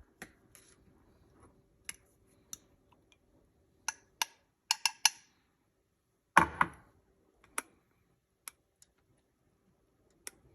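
Kitchen items being handled and set down: scattered light clicks and taps at irregular intervals, with one heavier knock a little past the middle.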